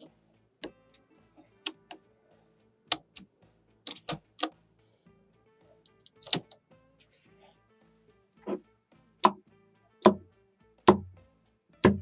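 Blocks of small magnetic balls clicking sharply as they snap onto a magnet-ball model and are set down on a table, about a dozen irregular clicks, the last few with a heavier thud. Faint background music runs under them.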